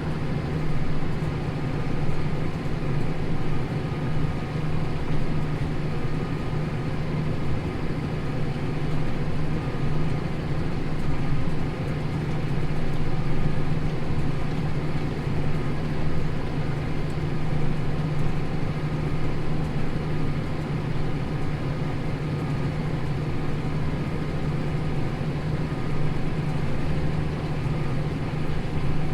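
Tractor engine running steadily under load as it pulls a plough through hard stubble, a continuous low drone with no change in speed.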